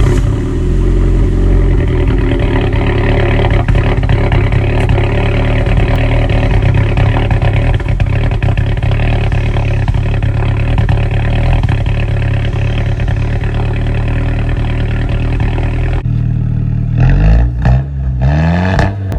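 Straight-piped 2008 Audi A4's 2.0 turbo four-cylinder engine running loud and steady just after a cold start, with a bad fuel injector. Near the end the sound changes and the pitch rises and falls a few times, like short revs.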